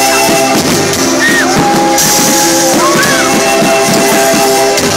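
Loud rock music with guitar and drums, including sliding guitar notes over a steady beat.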